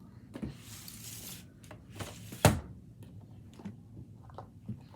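Handling of a trading-card case: a brief sliding, rustling noise, then a single sharp click about two and a half seconds in, followed by a few lighter taps.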